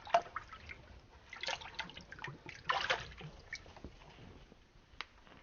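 Water dripping and splashing in a sump pit, a few irregular drips and splashes with the louder ones about a second and a half and three seconds in, and a sharp drip or click near the end.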